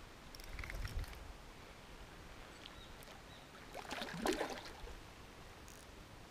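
A hooked common carp splashing briefly at the surface about four seconds in, while the rod is bent into the fish. There are a few low knocks of handling noise near the start.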